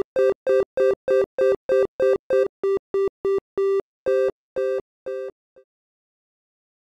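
Synthesizer triangle-wave tone sounding two pitches together, chopped by tempo-locked gating into short even pulses about three a second, the gaps widening slightly near the end. The pulses stop about five and a half seconds in, after one last short blip.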